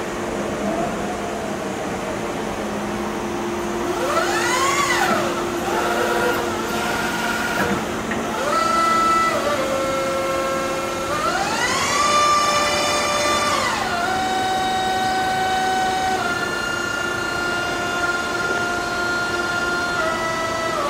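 Hyundai 50B-9 battery-electric forklift's electric motors whining: the pitch rises, holds and falls several times as the truck drives, then settles into a steady whine that changes pitch in steps while the mast is raised.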